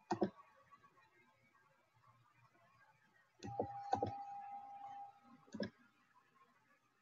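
A few sharp clicks or knocks: one at the start, two close together about three and a half to four seconds in, and one more a little later. A steady single tone sounds under the middle pair for about a second and a half.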